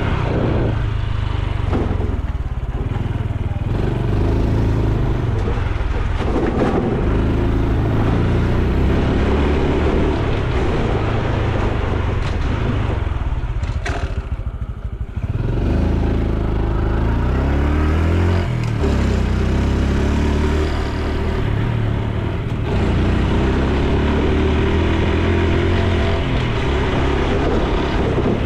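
Honda Super Cub C125's single-cylinder four-stroke engine and exhaust running on the move, rising in pitch several times as it picks up speed, briefly quieter about halfway through.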